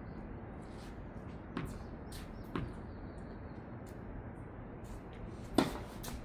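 Tennis ball impacts from play on a hard court: three sharp pops from racket strikes and the ball bouncing, the loudest about five and a half seconds in.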